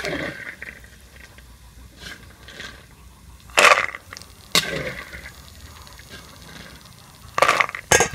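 Fried peanuts dropped off a metal spatula into a stainless steel bowl, landing in four short noisy bursts against the steel.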